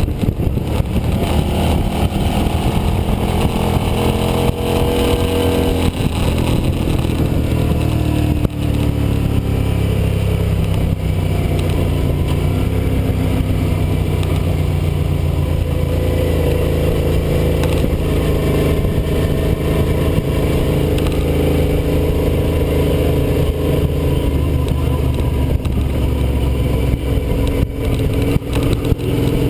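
Sport motorcycle engine running at part throttle, its revs easing down from about 4,500 to 2,500 rpm as the bike slows.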